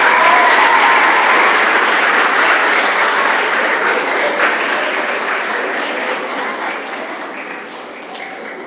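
Audience of schoolchildren clapping after a speech: the applause is loudest at the start and gradually dies away.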